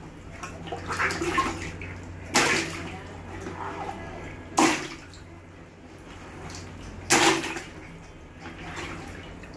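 Water balloons bursting in a bucket of water, three times about every two and a half seconds, each a sudden pop and splash, with water sloshing in between.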